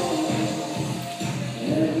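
Music playing, with a melody.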